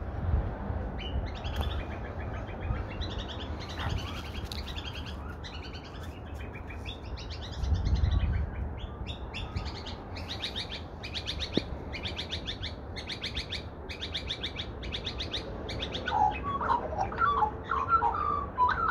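Birds calling: a harsh, rapidly pulsed high call repeated about once a second, then lower warbling notes from an Australian magpie over the last few seconds.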